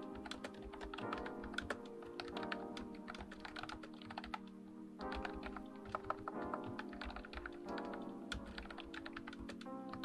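Continuous fast typing on an Ajazz 308i wireless keyboard, a non-mechanical keyboard with round keycaps: a quick, uneven patter of fairly quiet key clicks.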